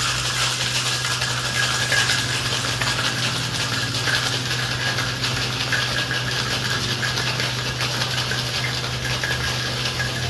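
Boston cocktail shaker packed with ice and liquid being shaken hard: a continuous fast rattle of ice against the metal tin.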